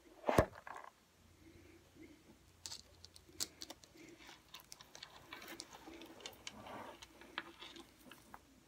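Handling noise from a thick hardback altered book being picked up off a table and held up: a sharp knock about half a second in, then scattered light taps, clicks and paper rustles.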